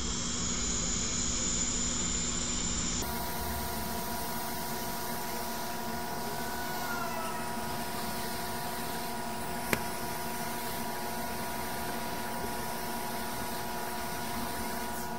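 Hot air rework station blowing a steady hiss over the board to desolder a shorted transistor. The hiss turns brighter about three seconds in, and there is a single sharp click near ten seconds in.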